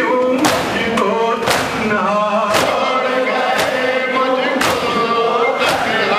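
A noha chanted by men's voices, a crowd of men in mourning chanting together, with the slap of hands striking chests in unison (matam) about once a second.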